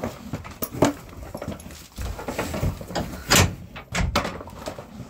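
A few separate knocks and thuds, the loudest a sharp knock about three seconds in, as a horse is being loaded into a horse trailer, its hooves striking the ramp and trailer floor.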